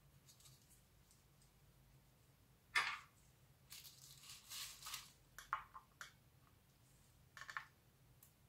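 Gloved hands handling a circuit board on bubble wrap: a sharp click about three seconds in, then a couple of seconds of rustling, followed by a few light clicks.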